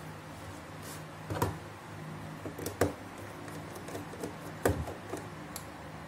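Sharp clicks and taps of a small tool and fingers on a laptop's bottom case as a rubber foot strip is pried up to reach a hidden screw; three louder clicks about a second and a half, three, and four and a half seconds in, with lighter ticks between.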